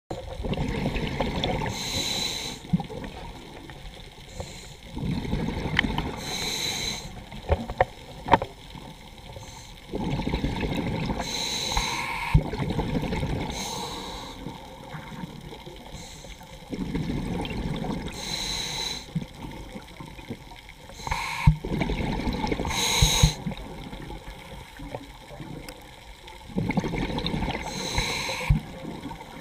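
A scuba diver breathing through a regulator underwater: about six breaths, roughly one every five seconds. Each breath brings a rumble of exhaled bubbles and a short high hiss from the regulator.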